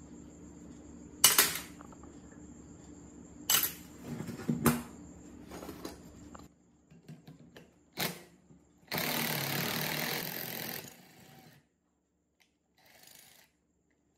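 Hand tools knocking on metal pump parts: about four sharp clanks spread over the first eight seconds, then a loud hiss lasting about two and a half seconds.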